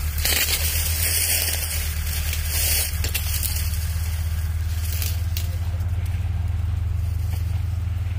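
Diesel tractor engine labouring steadily as it hauls a heavily loaded sugarcane trolley: a low, pulsing drone. Short bursts of high hiss come near the start and again about five seconds in.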